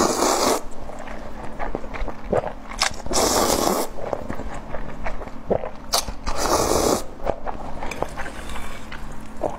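A person slurping noodles, three long noisy pulls about three seconds apart, with wet chewing and small clicks between them.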